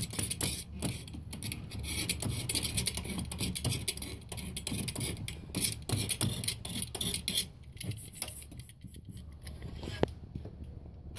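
Razor blade scraping paint off a copper cold water pipe in quick, rapid strokes, cleaning it to bare metal so a ground clamp makes good contact. The scraping thins out about three quarters of the way through, with a single sharp click near the end.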